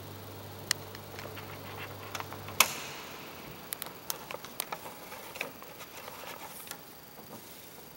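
A low steady hum cuts off with a sharp click about two and a half seconds in, then paper sheet music is handled and turned on the organ's music desk, giving a run of short crackles and clicks.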